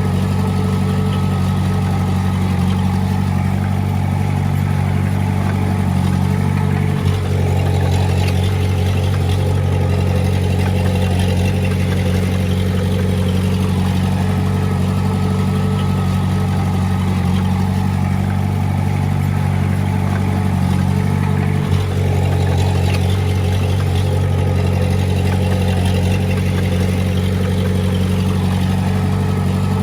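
Diesel engine of a Komatsu D20A bulldozer running steadily under work, with a brief dip in the sound twice, about a quarter of the way in and again about three quarters through.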